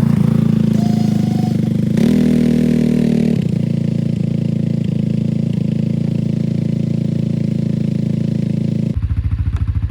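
Four-wheeler's engine running at raised throttle, rising briefly about two seconds in, then easing back. Near the end it drops to a lumpy idle.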